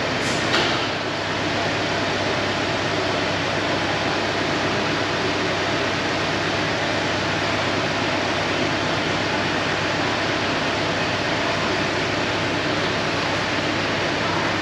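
Steady rushing background noise of a workshop, with one short click about a quarter of a second in.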